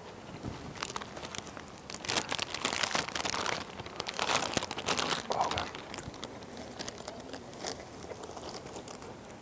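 A bag of Takis chips crinkling as it is handled, in two long stretches in the first half, with scattered crunchy clicks.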